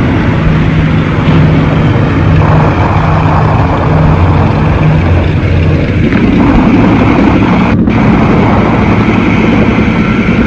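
Loud, steady drone of heavy engines, as on an old war-film soundtrack. A low hum gives way to a rougher, slightly higher rumble about six seconds in.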